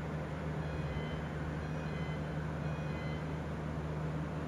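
Steady low hum of aerial tramway station machinery, with a series of short high electronic beeps during the first half.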